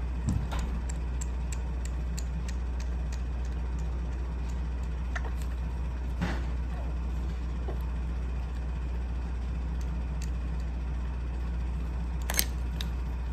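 Steady low hum of an air conditioner, with faint small clicks and smacks as a young kitten takes milk from a feeding syringe, and a couple of sharper clicks.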